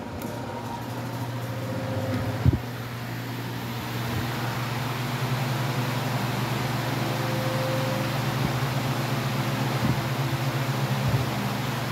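Two high-velocity floor fans, a Lakewood HV-21T and a Lasko H20301, running: a steady motor hum under a rush of air, growing louder over the first few seconds. A sharp knock comes about two and a half seconds in, with a few lighter clicks later.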